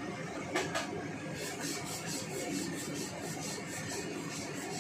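A metal ladle stirring and scraping stir-fry in a stainless steel wok over a steady sizzle. It knocks against the pan twice about half a second in, then scrapes in quick even strokes, about four a second.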